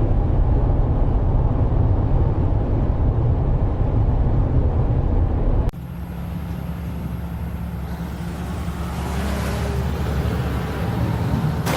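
Heavy, loud low rumble of a building demolition, cutting abruptly about six seconds in to a quieter, steady low mechanical hum with a rising noisy swell near the end.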